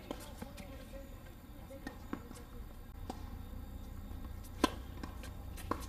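Tennis ball bounced on a hard court a few times, then a sharp racket strike on a serve about three-quarters of the way through, with another knock of the ball soon after, over a steady low hum.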